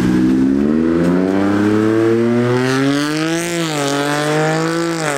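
Car engine accelerating hard as the car drives off: its pitch climbs steadily for about three and a half seconds, dips briefly, then falls away sharply near the end.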